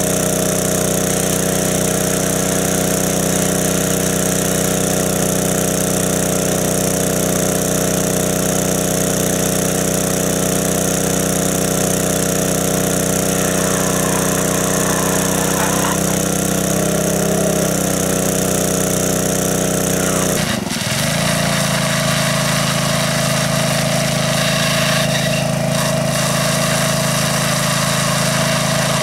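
Small engine-driven water pump running steadily as it sucks water out of a pond through a hose, with the hiss of water spraying from its outlet. The sound changes abruptly about two-thirds of the way through, then runs on steadily.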